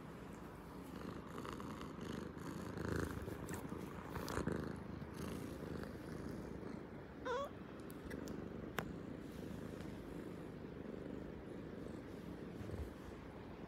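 Tabby-and-white domestic cat purring steadily, close up. A short high chirp breaks in about halfway through, and there is a single click soon after.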